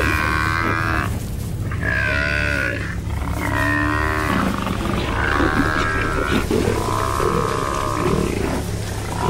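African buffalo bull bawling in distress again and again, a string of drawn-out calls each about a second long with short gaps between them: the cries of a bull being pulled down and killed by lions. A steady low rumble runs underneath.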